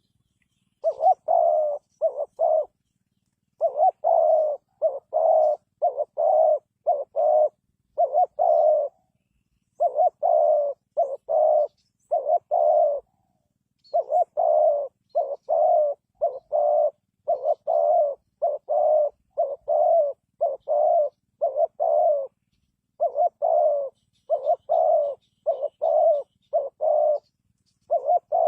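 Spotted dove cooing over and over, several quick notes to each run, with short pauses between runs.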